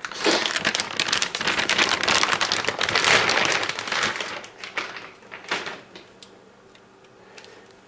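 Plastic packaging, bubble wrap and an anti-static bag, crinkling and crackling as a graphics card is unwrapped: dense for about four seconds, then thinning to a few scattered crackles.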